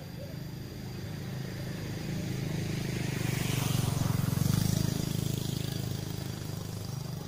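A motor vehicle engine running, swelling louder from about two and a half seconds in and fading again near the end, as of a vehicle passing by.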